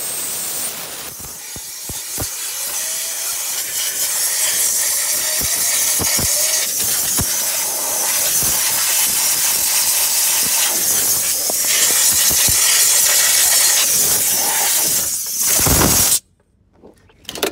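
A strong jet of air hissing steadily as it blows packed dirt out of a variable frequency drive's heat sink and cooling fan, then cutting off abruptly near the end. The clogged heat sink is what makes the drive overheat and trip.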